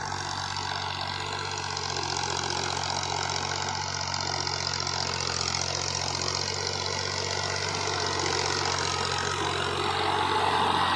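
Diesel farm tractor's engine running steadily under load as it tows a cultivator for tilling, growing louder as it comes closer.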